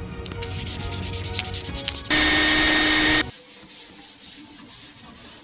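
Sandpaper rubbing on a plywood piece in repeated hand strokes. A loud, steady machine noise with a whine cuts in for about a second near the middle and stops abruptly.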